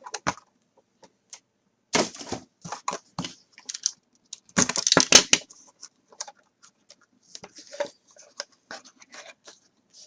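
Trading-card box packaging being handled and opened by hand: a string of irregular clicks and crinkles of plastic wrap and cardboard, with a louder, denser crinkling burst about halfway through.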